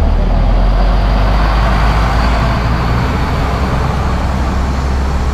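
Road traffic with a heavy vehicle's engine rumbling close by. A rush of traffic noise swells over the first two or three seconds, then eases.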